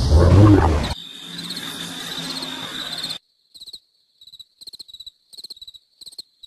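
A brief cartoon vocal sound, then a steady hum with a thin high tone that cuts off suddenly about three seconds in, followed by crickets chirping in short high bursts.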